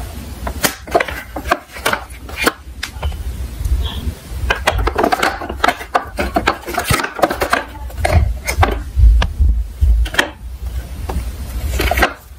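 Diecast toy cars rolling down a slope: a low rumble of small wheels with many sharp clicks and clacks, thickest around the middle.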